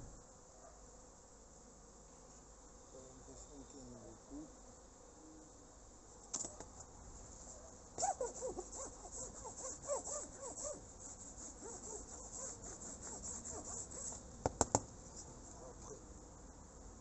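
Honeybees buzzing around an open hive. From about six seconds in, a metal hive tool scrapes repeatedly across a white board in quick strokes, and three sharp knocks come close together near the end.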